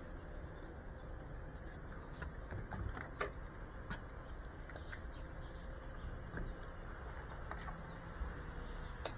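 Faint outdoor background: a steady low rumble with a few short chirps and clicks scattered through it.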